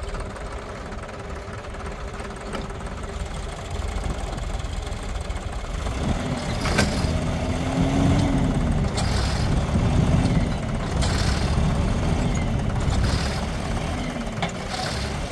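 Diesel tractor engines running under load as one tractor tows another out of deep mud; about six seconds in the engine note climbs and then rises and sags repeatedly as they strain, with a few sharp clacks.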